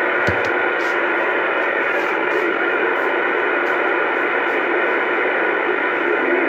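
Bearcat CB radio's speaker hissing with loud, steady static between transmissions, with a short low thump about a third of a second in.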